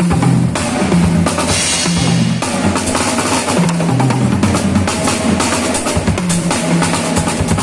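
Live band music at a sound check: a drum kit struck steadily, with held bass notes underneath.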